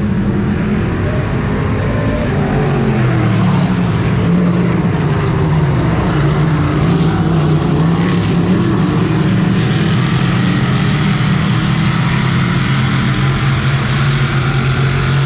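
A pack of dirt-track race cars running around the oval together, their engines droning loudly with a pitch that wavers and shifts as the cars pass and go away.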